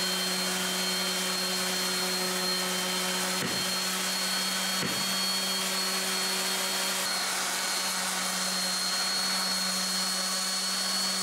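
DeWalt random-orbit palm sander running steadily with 40-grit paper on cured epoxy over fiberglass: a constant motor hum and high whine over the hiss of the abrasive.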